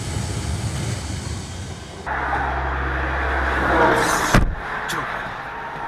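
A car driving at highway speed, with steady road and engine noise heard from inside the cabin. About four seconds in there is a sharp, loud bang, followed by a smaller knock.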